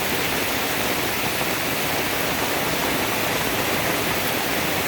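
Torrential rain pouring down, a dense, steady hiss of heavy rainfall.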